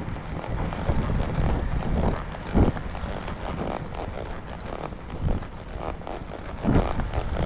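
Wind rumbling on a camera microphone carried on a walking horse, with a few soft thumps about two and a half and almost seven seconds in.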